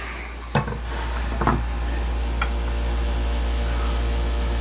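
A steady machine hum with a low drone, growing louder about a second in and then holding level. Two sharp clicks come near the start.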